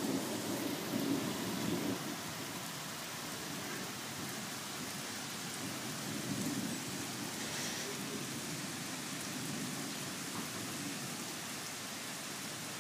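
Steady downpour of a thunderstorm, with low rumbling that swells in the first couple of seconds and again about six seconds in.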